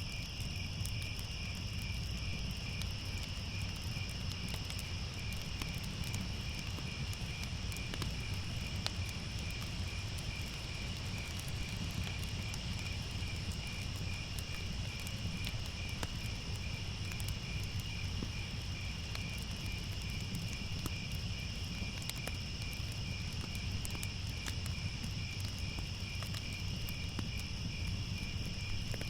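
Crickets chirping steadily in an even, pulsing rhythm, with scattered faint crackles and a low rumble underneath, as from a fireplace.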